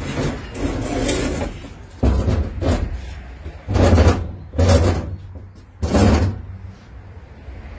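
Scraping and rattling, then a run of about five deep thumps and knocks inside a box truck's cargo body, the loudest about four seconds in.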